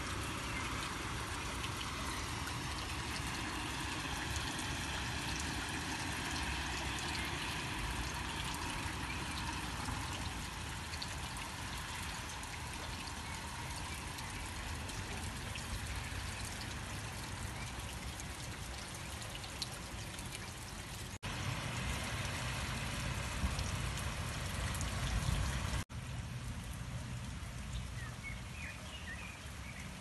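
Steady rain falling, with water trickling and pouring. Two sudden brief breaks about two-thirds of the way in and near the end change the sound, and between them a deeper low rumble is louder.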